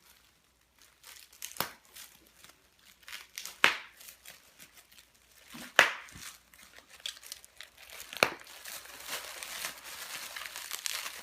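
Plastic bubble wrap being popped by hand: four sharp single pops about two seconds apart among crinkling of the plastic. Near the end the crinkling becomes steady.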